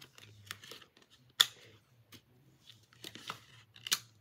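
Plastic DVD and Blu-ray cases being handled: a few sharp clicks and knocks, the loudest about a second and a half in, with soft rustling between them.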